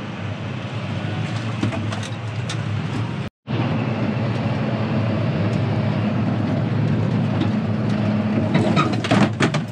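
Tractor engine droning steadily under load, heard from inside the cab, with a brief break about a third of the way in and a few sharp clicks or rattles near the end.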